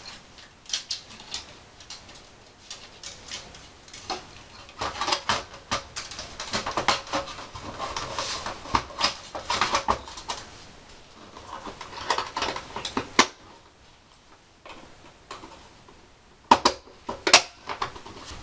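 Hard plastic parts clicking and clattering as they are handled and fitted together by hand, in irregular runs, with a few sharper snaps near the end.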